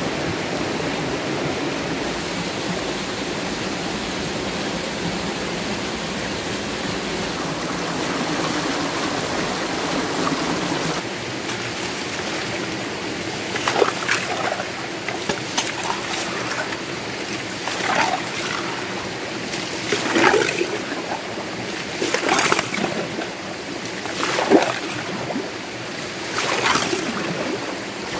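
Water running steadily through a stone-lined channel at a stream. About eleven seconds in, the flow becomes quieter and a series of splashes follows, roughly one every two seconds.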